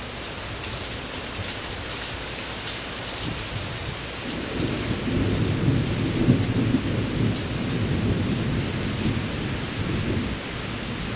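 Steady rain falling in a thunderstorm. About four seconds in, a deep roll of thunder builds up and keeps going, loudest a couple of seconds after it starts.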